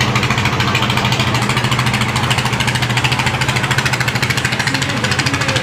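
Engine of a small wooden motorboat running under way, a rapid, even chugging.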